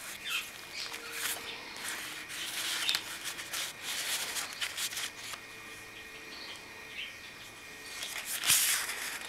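Paper and card pages of a handmade spiral-bound recipe book being handled and turned: irregular rustles and crinkles, the loudest one near the end.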